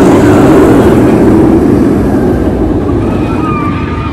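Steel inverted roller coaster train (a Bolliger & Mabillard invert) running on its track through a loop: a loud, steady rush of wheels on steel. It is loudest at the start and eases off toward the end.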